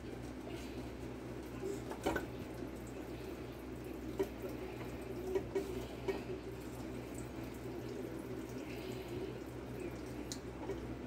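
Wooden spoon stirring pieces of turkey in broth in a stainless steel pot, with wet sloshing and a few light knocks of the spoon against the pot, over a steady low hum.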